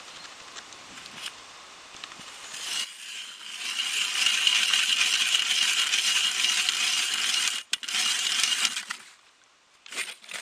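Hand ice auger's steel blades cutting into lake ice: a scraping grind that grows loud about three seconds in, with a steady high ringing tone over it, and stops about nine seconds in. A couple of sharp knocks follow near the end.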